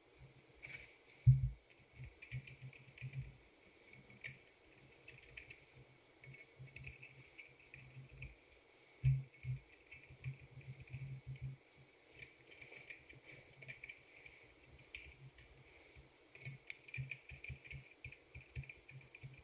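Faint, scattered clinks and light knocks of metal tools and parts being handled, the loudest knocks about a second in and about nine seconds in, over a faint steady high-pitched tone.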